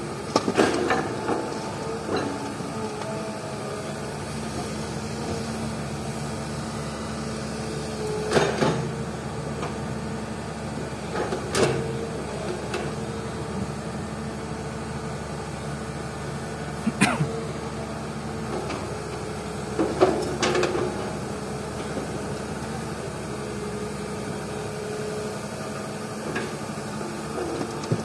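Excavator diesel engine running steadily while loading rocky cadas fill into a dump truck, with about five loud knocks and clatters spaced several seconds apart as bucket loads and rock strike the truck's bed.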